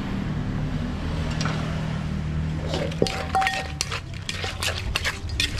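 A spoon and wooden pestle knocking and clinking in a clay mortar as shredded green papaya salad is tossed. There is one sharp knock about three seconds in, then a run of quick clicks and clinks. A steady low hum fills the first half.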